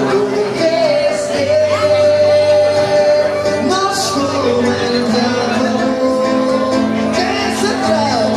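A man sings into a microphone while playing an acoustic guitar, holding one long note early on and then moving to lower notes.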